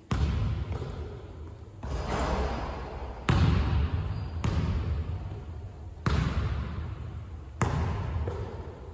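A basketball bouncing on a hardwood gym floor: about eight single, unevenly spaced bounces, each ringing on in a long echo through the empty gymnasium.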